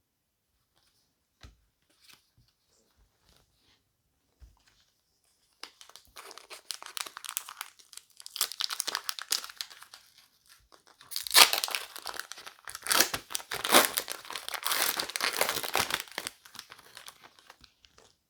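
A trading-card booster pack's wrapper crinkling and being torn open, starting about six seconds in after a few faint clicks, with the sharpest tearing and crinkling around eleven to sixteen seconds.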